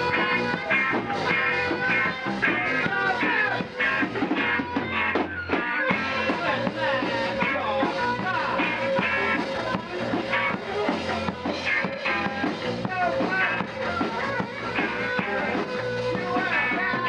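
Rock band playing live: guitar over bass and drums, with a steady driving beat.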